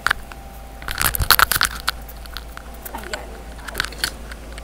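Objects being handled and moved about by someone rummaging for something: a cluster of sharp clicks and knocks about a second in, then fainter scattered clicks.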